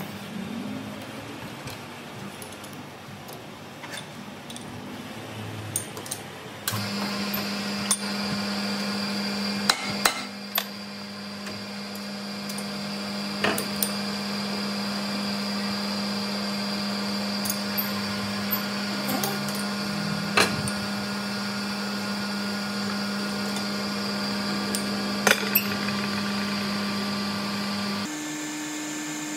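Metal lathe: a few metal clicks as the shaft is set in the three-jaw chuck, then the lathe starts about a quarter of the way in and runs with a steady hum and high whine, broken by sharp metal clinks now and then. Near the end the hum steps up in pitch, with the chuck spinning.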